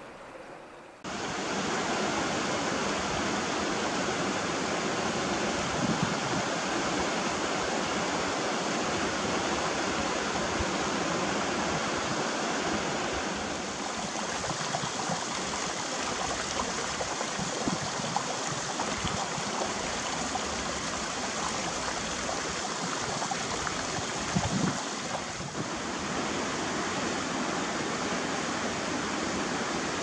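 Shallow, rocky mountain river rushing and splashing over stones, a steady water noise that comes in about a second in and shifts slightly in tone twice.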